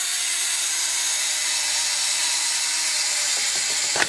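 Electronic toasting sound effect of a Hello Kitty toy toaster: a steady hissing noise from its small speaker while the toast is down.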